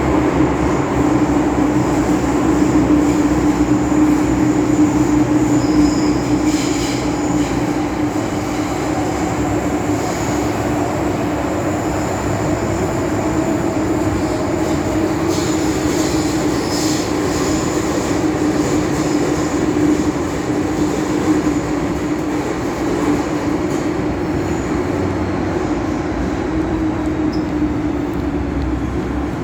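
Metro-Cammell M-Train electric multiple unit running at speed on the Island Line, heard from inside the car: a steady rumble with a held low hum. Brief high wheel squeals come about six seconds in and again around fifteen to seventeen seconds in.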